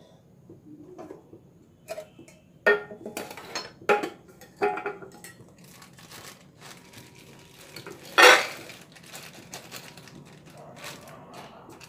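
Kitchen clatter of dishes and utensils being handled on the counter: a few sharp knocks between about two and five seconds in, then the loudest clank, ringing briefly, about eight seconds in.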